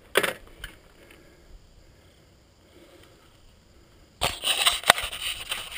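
A short rustling knock close to the microphone, then a few quiet seconds, then a dense run of rustling and sharp clicks from about four seconds in.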